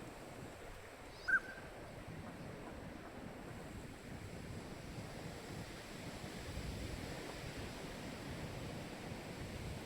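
A single short, clear whistled call of a male northern pintail about a second in, over a steady rushing background of wind and water.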